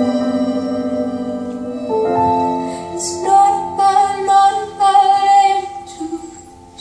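Recorded music: a held keyboard chord that changes about two seconds in, then a woman singing a slow melody with long held notes, fading near the end.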